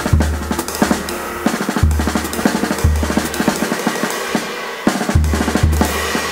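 Jazz drum kit played unaccompanied: quick, irregular snare and tom strokes over cymbal wash, with low bass drum booms about once a second.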